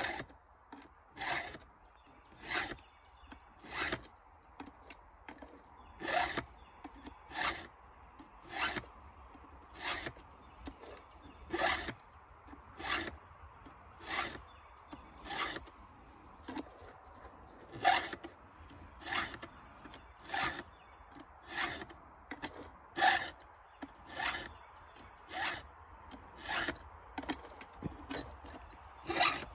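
Round chainsaw file rasping across the cutters of a saw chain during hand sharpening: about one stroke a second, with a couple of slightly longer pauses.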